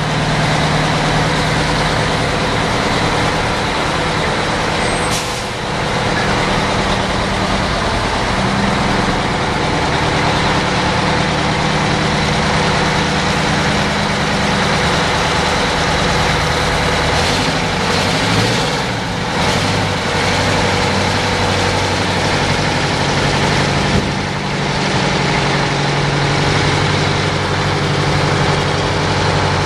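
Diesel engine of an American cabover semi-truck running at low revs as the truck pulls slowly away with its trailer, the engine note rising a little now and then. A few short air hisses sound over it, typical of truck air brakes.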